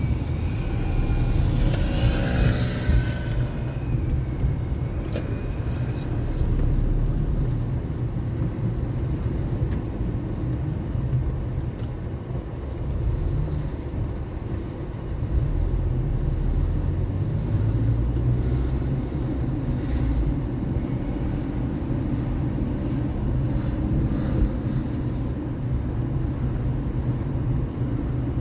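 Car driving through city streets: a steady low rumble of engine and road noise, with a brief higher-pitched sound about one to three seconds in.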